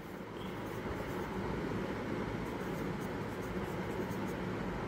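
Pen writing digits on notebook paper, scratching lightly over a steady background hiss.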